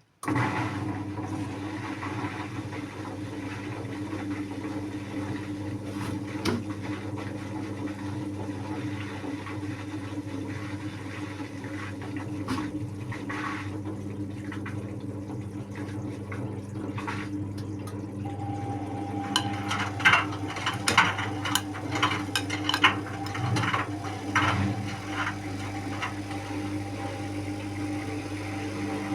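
Indesit WIU81 front-loading washing machine running a quick 30° cycle, with a steady motor hum and water rushing through it. Typical of the drain pump emptying the drum. In the second half a higher tone joins, along with a run of sharp clicks and gurgles.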